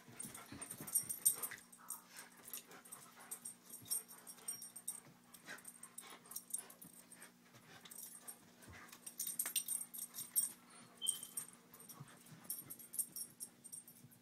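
Two wolfdogs play-fighting: breathy dog vocal noises mixed with quick, uneven bursts of scuffling clicks and rustles, over a steady low hum.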